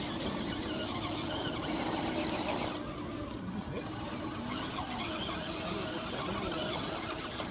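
Radio-controlled scale rock crawler's electric motor and geared drivetrain whining steadily as the truck crawls along.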